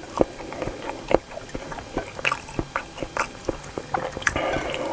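Close-up chewing and mouth sounds of a person eating: irregular sharp wet clicks and smacks as the food is bitten and chewed.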